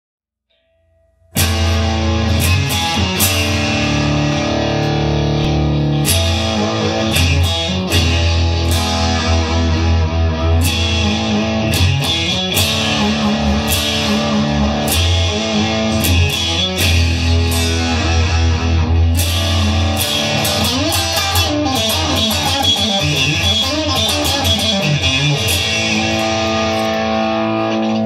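Guitar-led rock music with a steady heavy bass line, starting abruptly about a second and a half in after near silence.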